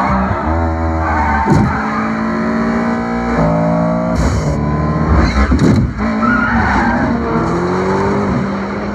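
Dubbed race soundtrack: music mixed with race-car sound effects, engines revving up in rising pitch and tyres squealing.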